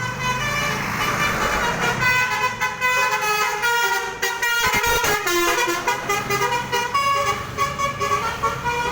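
Basuri V3 telolet horn on a bus: a multi-tone horn playing a tune of quick stepped notes, sounding continuously.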